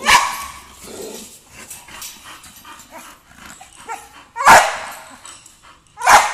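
A bully-breed dog barking three times: once right at the start, once about four and a half seconds in, and once near the end, with quieter scuffling between the barks.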